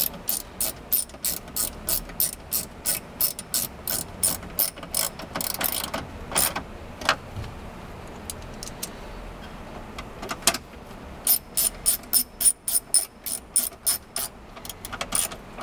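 Ratcheting screwdriver clicking as it drives in the screws that secure a stereo mounting kit into the dash: a run of quick clicks, a pause of a few seconds, then a second run.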